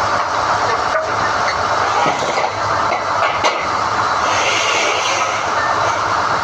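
SDH-1600 core drilling rig running steadily while drill rods are hoisted from the hole, with a few faint clicks.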